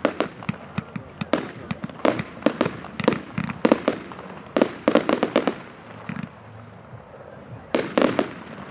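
Fireworks exploding at a display: a rapid, irregular string of sharp bangs in clusters, a lull of about two seconds, then another burst of bangs near the end.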